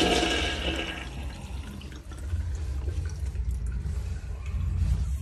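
Urinal flushometer flushing: a rush of water that is loudest in the first second, then dies away.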